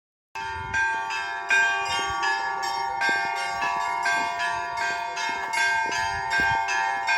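Church bells ringing: quick, even strikes about three a second over the steady lingering ring of the bells, starting abruptly just after the start.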